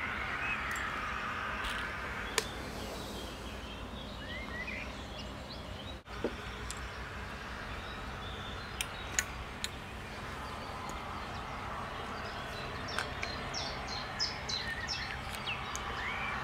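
Outdoor ambience: a steady background hiss with small birds chirping now and then, busiest near the end, and a few sharp clicks.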